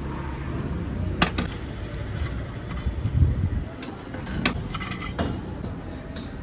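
Metal tools clinking and knocking on a KTM RC engine as its 14 mm cylinder-head bolts are undone. There are a few sharp clinks scattered through, with a dull thump about three seconds in.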